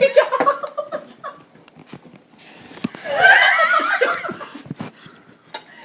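People laughing hard: a long run of high-pitched, wavering laughter starting about two and a half seconds in, after quieter laughing at the start.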